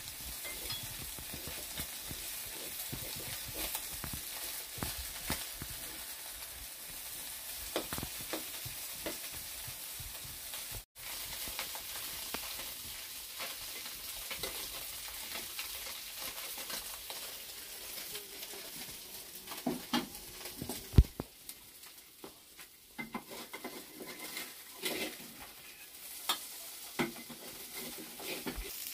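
Food sizzling in a black wok, stirred and scraped with a metal spatula, with many small scrapes and clicks over a steady sizzle. In the second half the sizzle is fainter and there are scattered knocks, with one sharp clank about two-thirds of the way through.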